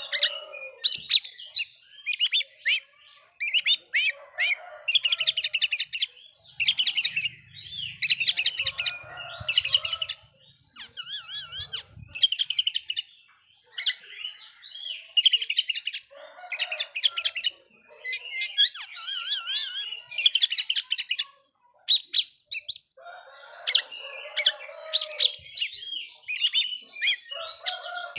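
Oriental magpie-robin singing: loud phrases of fast, rapid-fire notes and trills, one after another with short pauses between them. It is the kind of song played as a lure to rouse other magpie-robins into singing.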